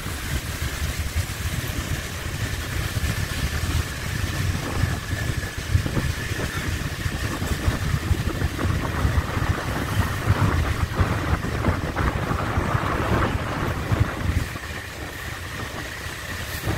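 Riding on a motorbike at night: engine and road noise under heavy, gusty wind buffeting on the microphone, with a faint steady whine throughout.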